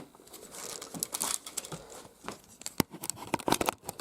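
Crinkling, rustling handling noise with scattered sharp clicks, growing busier in the second half.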